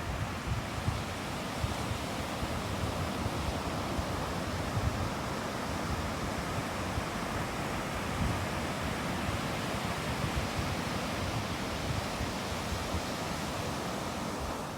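Steady rushing noise with an uneven low rumble underneath, cut off just before the end.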